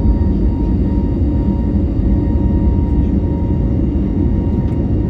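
Cabin sound of an Airbus A321neo's CFM LEAP-1A turbofans at takeoff thrust in the initial climb: a steady heavy rumble with a fan whine held at an even pitch.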